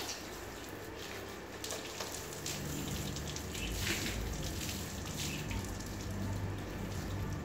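Water from a garden hose spraying onto a car's body and splattering and dripping onto the concrete floor, a steady wash of spray broken by short splashes. A low steady hum joins underneath a couple of seconds in.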